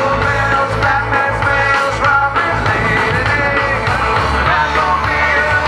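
Live rock band playing loudly: electric guitars, bass and a drum kit, with vocals at the microphones.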